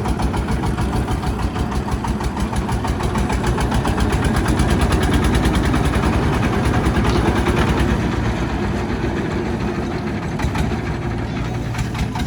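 Heavy diesel engine of the machinery in the mud recovery running with an even beat, getting louder about halfway through and easing off again toward the end.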